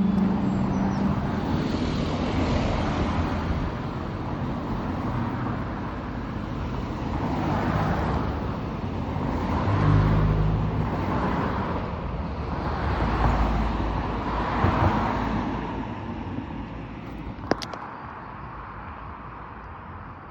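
Road traffic at a toucan crossing: several cars pass one after another, their tyre and engine noise swelling and fading, with a single sharp click late on and the road quieter near the end. No crossing beeper sounds: the crossing's audible signal no longer works.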